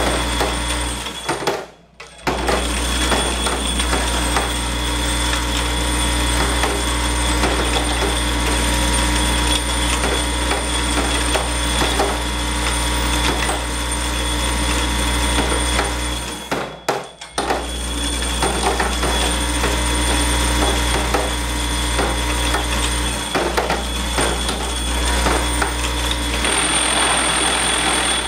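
Vibratory parts feeder for a centerless grinder running: a steady low hum with a thin whine, and steel pins rattling and clicking on the vibrating table. The feeder cuts out briefly twice, about two seconds in and again about seventeen seconds in, and a hissier rattle takes over near the end.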